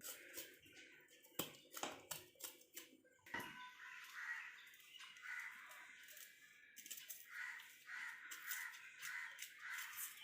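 Faint knife clicks and scraping as shallots, garlic and ginger are scraped clean, with short calls repeating in the background from a few seconds in.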